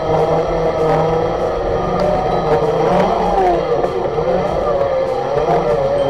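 Electric motors of a Segway personal transporter whining, the pitch wavering up and down as the speed changes.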